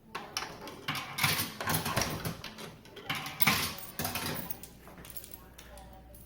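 Coins clinking and rattling as they are fed into a vending machine, a string of irregular metallic clatters that dies down near the end.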